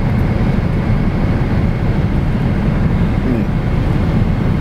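Steady cabin noise of a Boeing 777-300ER in cruise, heard from an economy seat: an even, low rumble of airflow and the GE90 engines.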